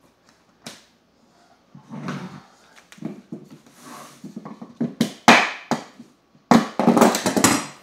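Vinyl flooring planks and hand tools being handled during a plank install: scattered sharp knocks and clicks, a few strong ones about five seconds in, then a quick run of rattling clatter near the end.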